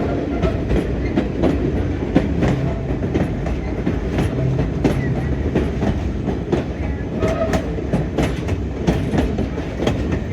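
Passenger railcar running along the track: a steady rumble of the wheels with irregular clicks and knocks from rail joints and car couplings.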